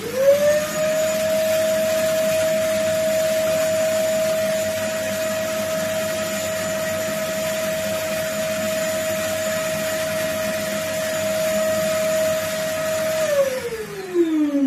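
Vacuum cleaner switched on, its motor spinning up to a steady high whine and running for about thirteen seconds while sucking up dust, then switched off and winding down with a falling pitch near the end.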